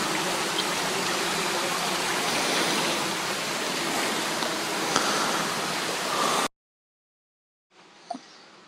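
Creek water rushing close by, a loud steady sound that cuts off abruptly about six and a half seconds in. After a second of silence a much fainter woodland background follows, with a couple of light clicks.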